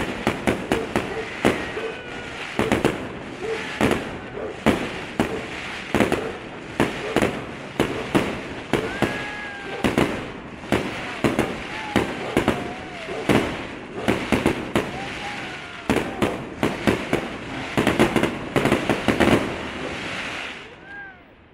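Fireworks display: aerial shells bursting in a rapid, irregular string of bangs and crackles, about two to three a second, that thins out and stops just before the end.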